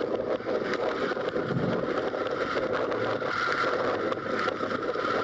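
Steady rush of wind and road noise recorded from a moving vehicle travelling along a road.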